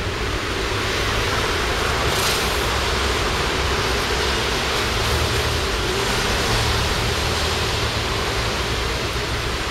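Steady rushing outdoor background noise with an uneven low rumble and no distinct events.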